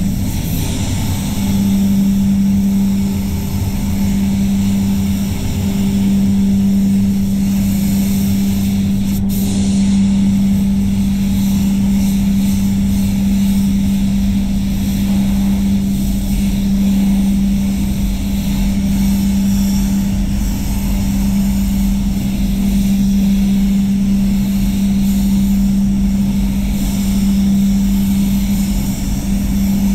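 Spray gun hissing as it sprays clear coat onto a bumper, over the steady hum of the spray booth's air system.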